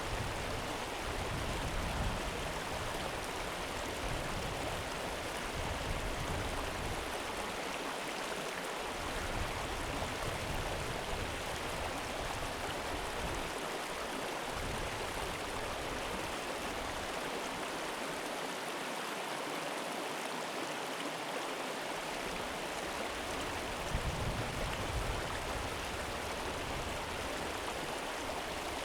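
A calm river flowing: a steady, even rush of running water.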